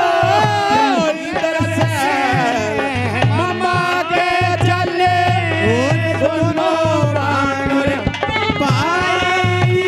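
Instrumental interlude of Haryanvi saang folk music: a melodic instrument plays a tune that slides between notes over a steady hand-drum beat.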